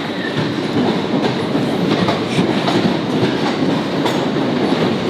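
Train noise in a covered station: a dense, even rumble with scattered faint clicks.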